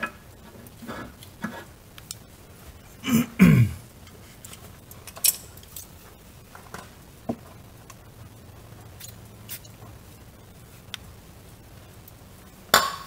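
A wrench clicking and scraping on a rusted 11 mm steel brake line fitting on a VW Golf mk4 rear axle as the stubborn fitting is worked loose. A short sound that falls in pitch comes about three seconds in, and a louder sharp knock comes near the end.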